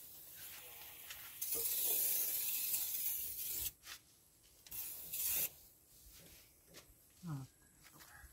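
Aerosol spray can hissing in two bursts onto an opened drum brake: a long spray of about two seconds starting a second and a half in, then a short one about five seconds in.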